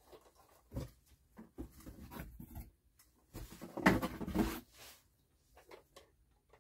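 Plastic toy helicopter being handled: scattered light knocks and rustles of plastic, with a louder bout of clatter about four seconds in.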